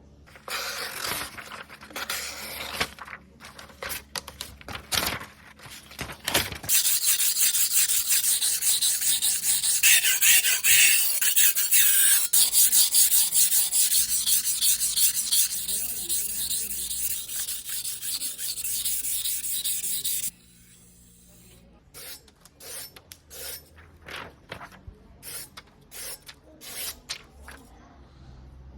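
A Zwilling Henckels Pro gyuto's steel blade being hand-sharpened on a whetstone, scraping back and forth across the wet stone. It begins with separate strokes, changes to a long, loud run of quick continuous strokes, and goes back to separate strokes near the end.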